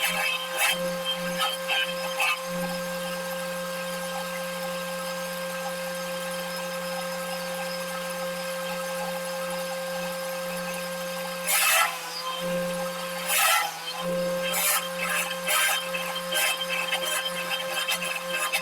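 Woodworking machine's electric motor running with a steady hum; about twelve seconds in, the cutter bites into wood in two loud spells, then keeps up an uneven rasping chatter.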